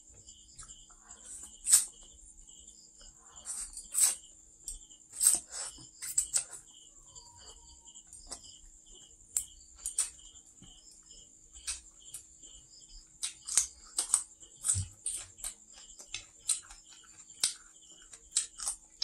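Close-up eating sounds: stir-fried noodles slurped and water spinach chewed, in a string of short, sharp smacks and clicks that come in clusters. A steady high insect chirring runs behind.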